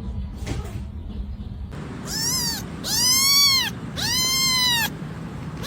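A cat meowing three times in a row, starting about two seconds in. Each meow is loud and drawn out, rising and then falling in pitch, and the last two are longer than the first.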